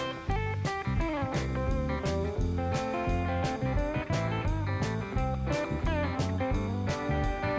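Guitar-led background music with a steady beat.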